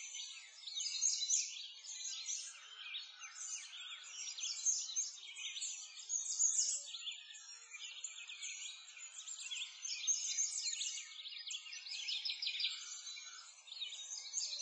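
A dense chorus of songbirds chirping, many quick high calls overlapping with no break.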